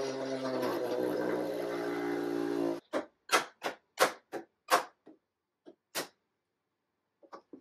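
A steady hum of several held tones cuts off abruptly about three seconds in. It is followed by a run of short, sharp clicks and knocks, irregularly spaced, as a screwdriver works the screws and metal fittings inside an old wooden radio cabinet.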